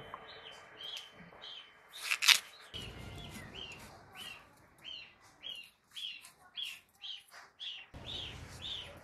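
A bird calling one short arched chirp over and over, about twice a second, from about three seconds in. A little past two seconds in comes a single sharp crack, the loudest sound.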